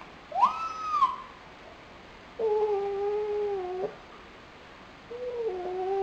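A nine-month-old Japanese raccoon dog (tanuki) calling out of loneliness: three drawn-out calls. The first is short, high and rises in pitch. The next two are lower and longer, each dropping in pitch as it ends.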